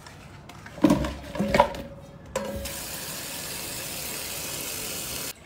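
A stainless steel bowl clanks a few times against the sink as shrimp and crabs are tipped into a plastic basin, about a second in. A kitchen tap then runs steadily onto the seafood in the basin and is shut off suddenly just before the end.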